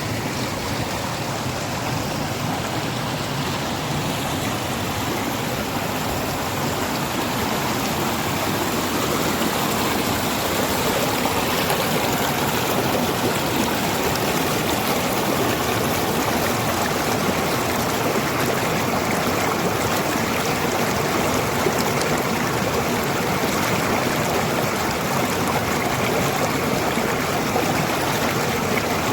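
Flowing water rushing steadily over rocks, growing a little louder over the first ten seconds or so.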